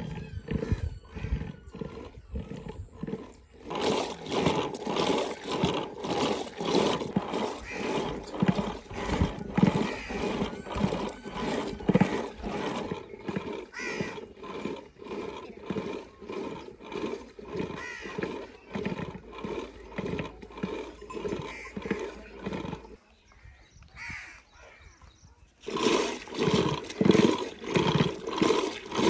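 Wooden churning stick spun back and forth by a rope in an earthen pot of curd, making a rhythmic swishing with each pull as curd is churned into butter and lassi. The churning pauses briefly near the end, then resumes.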